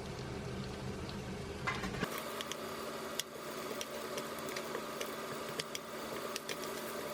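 Food cooking in a pan on the stove, bubbling with scattered sharp pops and crackles. About two seconds in, a low steady hum stops abruptly.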